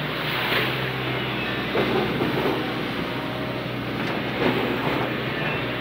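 Steady engine drone with water rushing past, and a few louder whooshing splashes as an excavator bucket sweeps through the water, about half a second, two seconds and four and a half seconds in.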